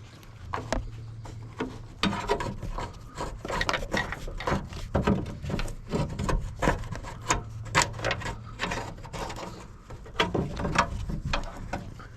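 Irregular rubbing, scraping and knocking of parts being worked inside a car door, as a wiring harness is fed back into it.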